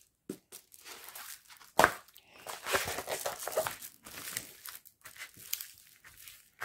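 Diamond painting canvas covered in clear plastic film being unrolled and pressed flat by hand: the film crinkles and rustles unevenly. There is one sharp knock about two seconds in, the loudest sound.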